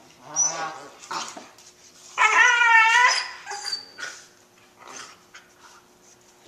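Puppies whining and yipping as they play and tussle. The loudest is a wavering whine lasting nearly a second, about two seconds in, with shorter cries before and after.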